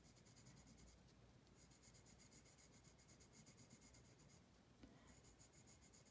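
Faint scratching of a pencil point drawing short strokes on paper.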